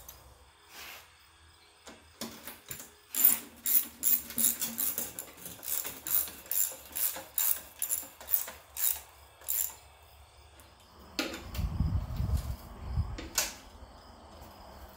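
Hand socket ratchet clicking in a quick series of strokes, running bolts down on the engine. Near the end comes a couple of seconds of low thumping.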